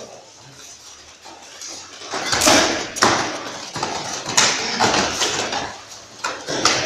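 Karate sparring on foam mats: from about two seconds in comes a run of quick scuffs, stamps and thuds from bare feet and strikes.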